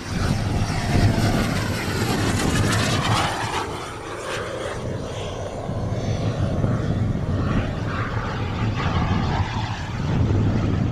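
A radio-controlled F-100 Super Sabre model jet's turbine engine, driven by a JB-130, passing overhead: a rushing jet noise with a high whine that falls in pitch over the first few seconds, swelling and fading as it goes by and louder again near the end.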